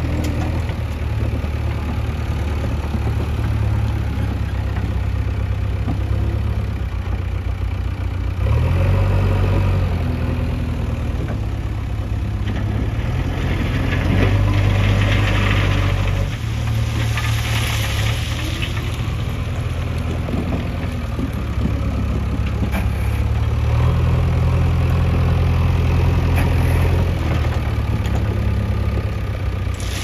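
Diesel engine of a JCB backhoe loader running steadily, revving up several times as it works.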